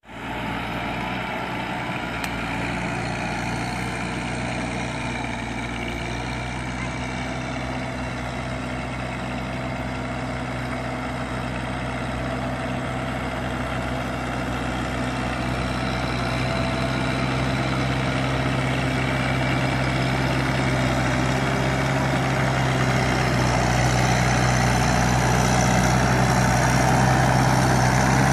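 Tractor engine running steadily under load as it works a flooded rice paddy, growing louder as it draws closer.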